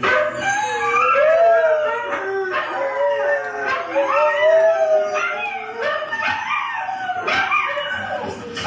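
Several huskies howling together, their long wavering howls overlapping at different pitches and rising and falling.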